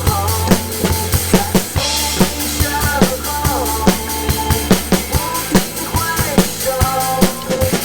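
Drum kit played along to a pop song's backing track: a steady kick-and-snare beat over the song's melody and bass, with a cymbal crash about two seconds in.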